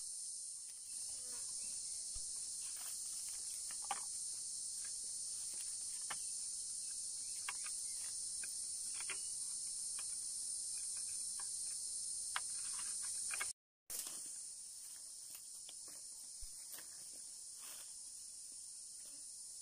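Steady, high-pitched chorus of forest insects, with faint scattered ticks and small knocks from sticks and cord being handled. The sound cuts out for a moment about two-thirds of the way through, then comes back slightly quieter.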